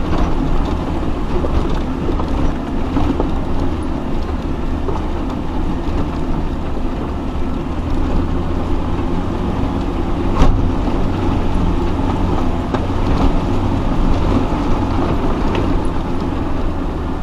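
Off-road vehicle's engine running at low revs as it crawls over a rough, rocky track, with knocks and rattles from the chassis and the stony ground; one sharper knock about ten seconds in.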